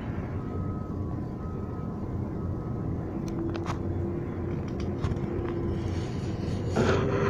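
Demolition machinery running with a steady low rumble and hum, with scattered knocks and clatter from about three seconds in and a louder crash near the end.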